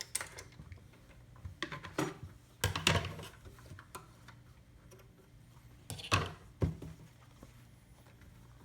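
A few sharp clicks and knocks from the controls of a Singer Touch & Sew 756 sewing machine being handled, as its stitch settings are changed, over a faint low hum.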